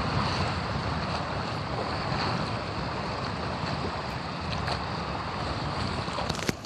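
Wind buffeting the microphone over small waves washing and splashing across a shallow sandbar, a steady rushing noise. A brief knock sounds near the end.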